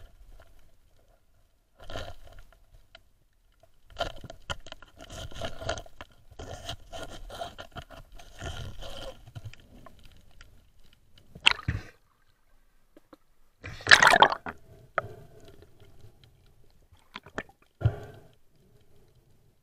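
Underwater handling noise from a camera in its housing as a diver works along rocks: irregular scraping and clicking in clusters, with a few sharper knocks and the loudest burst about two-thirds of the way through.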